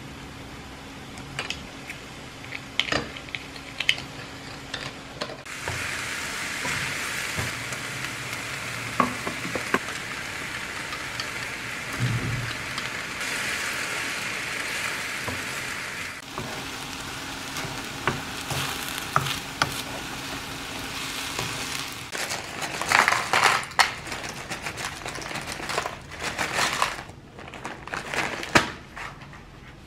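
Stir-fry sizzling in a frying pan as a wooden spatula turns noodles, beef and vegetables; the sizzle starts suddenly about five seconds in and dies down after about ten seconds. Light clinks of a measuring spoon and glass bowl come before it, and plastic bag and container clatter near the end.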